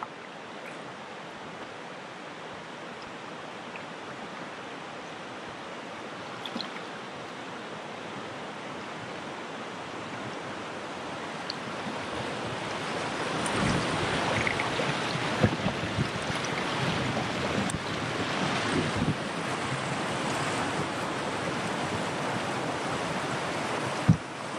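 Rushing river water around a kayak running shallow riffles, growing steadily louder from about halfway through as the kayak enters the rapids, with scattered low thumps.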